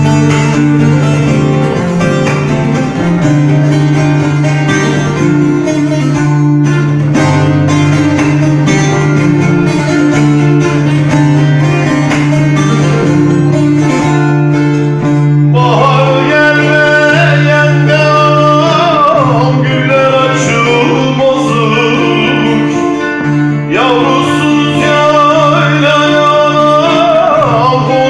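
Bağlama (long-necked Turkish saz) played in quick plucked runs over a steady low drone. About halfway through, a man starts singing over it.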